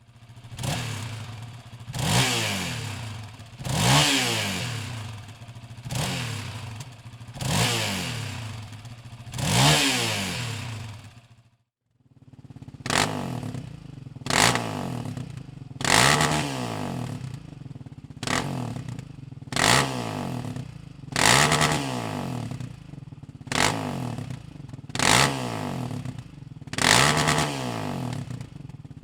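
2020 Yamaha Raptor 700R's single-cylinder four-stroke engine, fitted with a Dominator aftermarket exhaust, idling and being revved repeatedly, each throttle blip rising in pitch and falling back to idle. After a brief cut about a third of the way in, the revs come in quicker, shorter blips.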